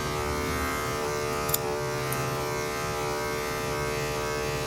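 Electric dog-grooming clippers running with a steady hum, with a short click about one and a half seconds in.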